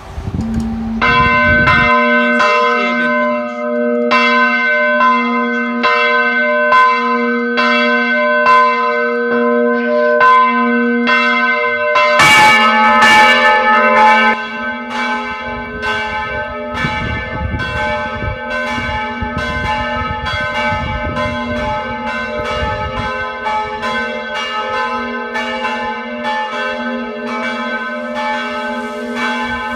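Church bells ringing in the bell tower, struck in a steady rhythm over a sustained hum. About twelve seconds in comes a loud stroke, and after it the strokes come faster and denser.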